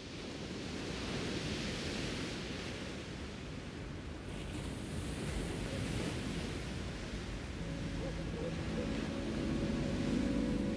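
Sea waves washing onto a shingle beach with wind, the sound swelling and easing. About eight seconds in, soft held notes of background music come in over it.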